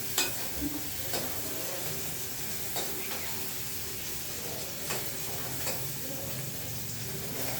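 Chopped onions sizzling in hot oil in a pan as they start to brown, with a handful of sharp clicks of a spoon against the pan as they are stirred.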